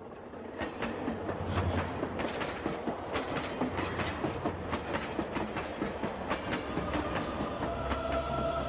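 Intro sound design under an animated logo: a dense, irregular run of clicks and knocks over a steady low rumble. Held musical tones come in near the end, leading into the intro music.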